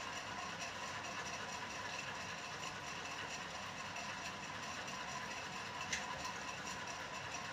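Steady hiss and hum with no clear pattern, broken by one brief click about six seconds in.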